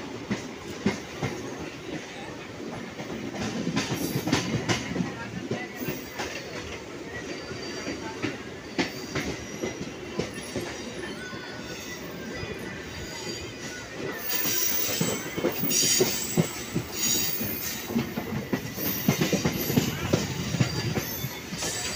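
Train running over station trackwork, heard from on board: wheels clicking over rail joints and points over a steady rumble, with high wheel squeal setting in about two-thirds of the way through.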